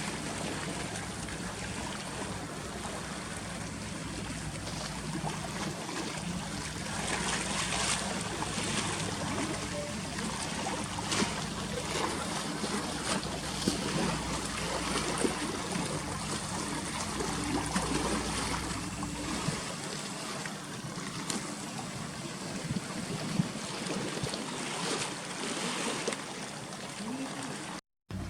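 Sea water washing and lapping against a harbour breakwater, with a steady low engine hum and scattered small clicks; the deepest part of the hum drops away about two-thirds of the way through.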